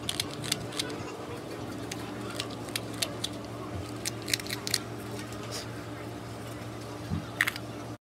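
A carving knife slicing and paring wood from a spoon blank: short, sharp cuts at irregular intervals over a steady low hum. The sound stops abruptly near the end.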